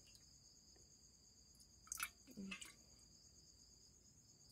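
Near silence with steady high-pitched cricket chirring in the background; about two seconds in, a couple of light clicks, typical of a plastic spoon touching a glass jar.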